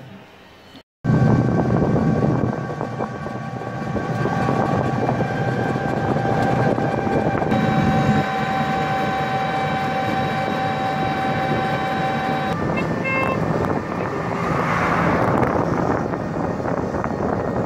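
Engine and road noise of a small motor tricycle on the move, heard from its open, canopied rear: a steady drone with a few steady whining tones that drop away about two-thirds of the way through.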